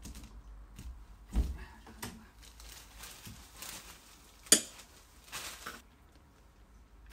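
Handling noises from a door and the metal lock parts being fitted to it: a dull knock about a second and a half in, a few light taps and rustles, and a sharp metallic click a little after the middle, the loudest sound.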